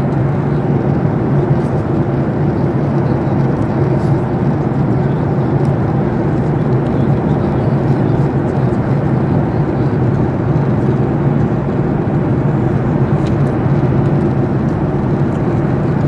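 Cabin noise of a jet airliner in flight: the turbofan engines and rushing airflow make a constant low drone that stays level throughout.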